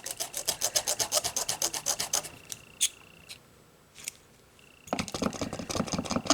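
Quick back-and-forth rubbing strokes on small nail-stamping tools, about nine a second, in two spells with a short pause between. A faint steady high-pitched whine runs beneath them.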